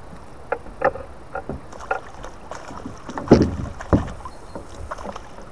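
Knocks and clatter on the deck and hull of a small fishing boat as an angler playing a hooked fish grabs the landing net, with two heavy thumps about three and four seconds in.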